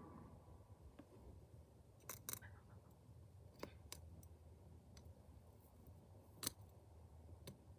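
Faint, scattered sharp clicks and snaps of hand weeding at the edge of a raised garden bed, about seven in all, spread over several seconds; the loudest comes about six and a half seconds in.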